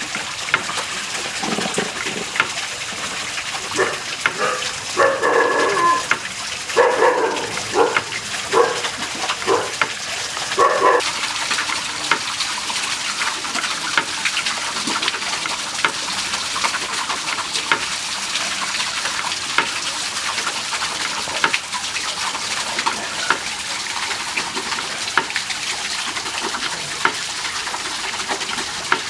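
A dog barking in a series of separate calls for about the first ten seconds. Under it runs a steady rushing hiss with small scattered clicks.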